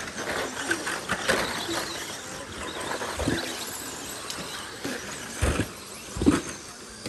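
Radio-controlled off-road race cars running on a dirt track: high-pitched whine and tyres scrabbling on the dirt, with several thumps, the loudest about six seconds in.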